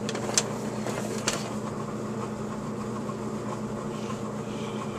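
A steady machine hum, like a fan, with two sharp light clicks about half a second and a second and a half in.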